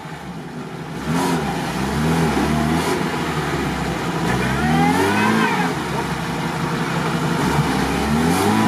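Off-road 4x4's engine revving hard in repeated surges, pitch rising and falling, the longest and highest rev about halfway through. The vehicle is stuck in a muddy rut, trying to drive out.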